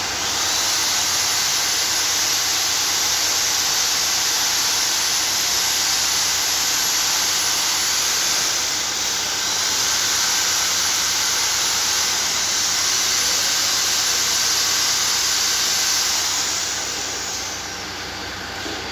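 Loud, steady hiss of pressurised gas escaping from a nozzle or hose. It starts abruptly and tails off a couple of seconds before the end.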